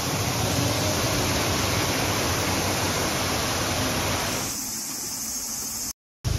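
Water rushing over a small weir in a concrete channel: a steady, even rush. About four and a half seconds in it turns a little softer and duller, then cuts off suddenly near the end.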